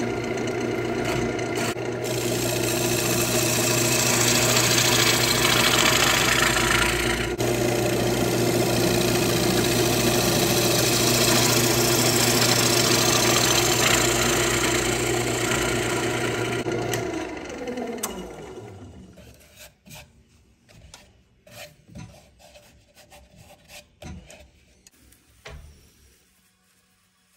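A wood lathe running while a bowl gouge cuts the inside of a wet ambrosia maple bowl: a steady rasping hiss of shavings over the lathe motor's hum. About 17 s in the lathe is switched off and its hum falls in pitch as it spins down, followed by a few light knocks and rustles.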